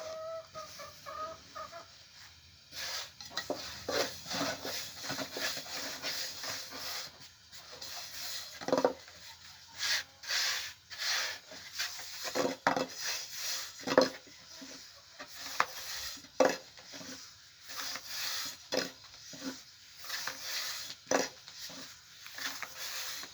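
Irregular knocks, clinks and scraping of cookware and utensils being handled.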